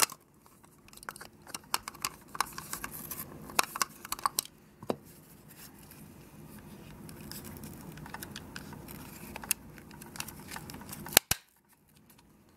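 Handling noise from the small plastic body of a battery-powered mini table vacuum being put back together: scattered clicks and rustles of plastic parts, with one sharp snap about eleven seconds in.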